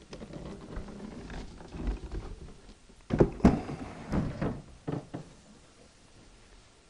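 Wooden hood of an antique longcase (grandfather) clock being handled and slid onto the case: soft shuffling and rubbing, then a handful of sharp wooden knocks and bumps about three to five seconds in.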